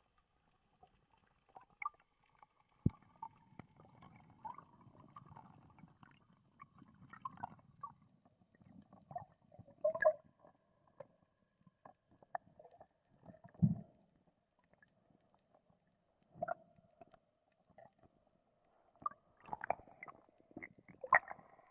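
Muffled underwater sound on a spearfishing dive: scattered knocks, thumps and gurgling water with a faint steady hum. There is a low rumble from about three to eight seconds in, a single louder thump about two-thirds of the way through, and a busier run of knocks near the end.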